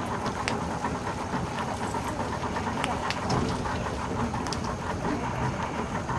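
Steady low running of a river boat's engine at idle, with a few faint short high chirps over it.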